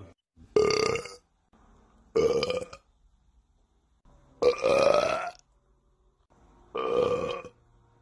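A man burping loudly four times in a row, about one and a half seconds apart, each burp under a second long and the third the longest.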